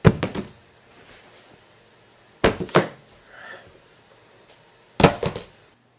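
Paperback books dropped one by one onto a tiled floor, landing with sharp slaps: three landings about two and a half seconds apart, each a quick double impact as the book hits and settles.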